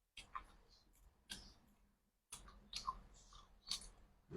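A few faint, sharp clicks and smacks of someone eating close to the microphone, spaced irregularly.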